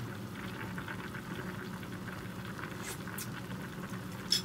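Sea bream head soup bubbling at a steady boil in a frying pan, with a few light clinks of a metal spoon; the sharpest clink comes near the end.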